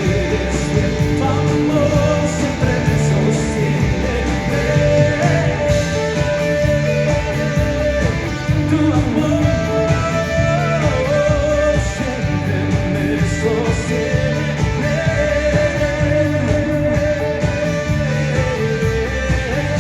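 Worship band playing the song: guitars over steady bass, with a voice singing a wavering melody.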